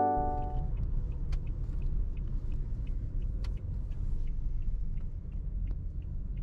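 Low road and engine rumble heard inside the cab of a Toyota Hiace camper van driving slowly and turning into a car park, with faint quick ticks throughout. A held musical chord fades out in the first moment.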